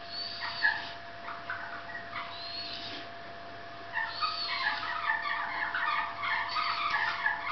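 Animal calls: a few short, high, arching chirps, then from about four seconds in a rapid, dense run of short chirping notes.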